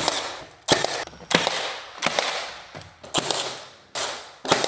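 Pneumatic finish nailer firing about seven sharp shots at uneven intervals, each dying away quickly, as a stair skirt board is nailed in place.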